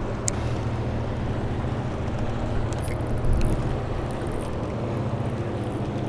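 Boat motor running steadily at a low, even hum, with some wind noise on the microphone and a faint click or two.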